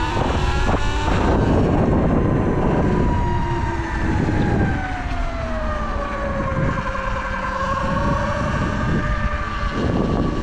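Sur-Ron Light Bee X electric dirt bike's drivetrain whine, rising in pitch as the bike speeds up at the start, sinking lower about five to seven seconds in, then holding steady, over a steady low rumble.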